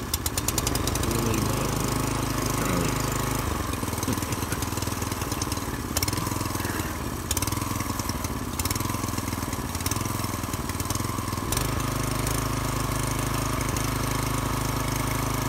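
179cc LCT single-cylinder overhead-valve engine, just fitted with 1.3:1 ratio rocker arms, running steadily; its note shifts about four seconds in and again about three quarters of the way through.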